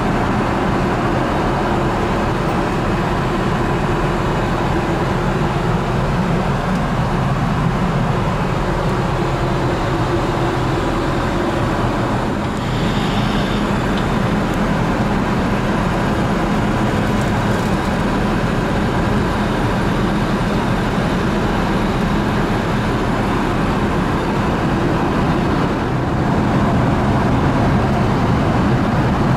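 Steady in-flight cabin noise of an Airbus A380 at cruise: an even hiss of airflow with a faint constant hum underneath.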